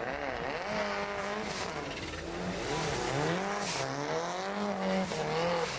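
Car engine revved hard, its pitch rising and falling over and over as the car spins doughnuts, with tyres squealing on the wet tarmac.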